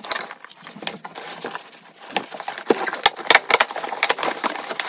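Cardboard box and packaging being handled as the box is opened: irregular scrapes, taps and rustles of the cardboard flaps, with crinkling of the plastic wrap around the helmet. The sounds grow busier after about two seconds.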